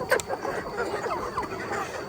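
A flock of chickens clucking, with many short overlapping calls and a couple of sharp clicks at the start.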